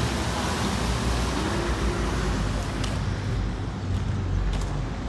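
Wind buffeting the microphone: a steady rushing hiss over a heavy, wavering low rumble, with a couple of faint clicks near the end.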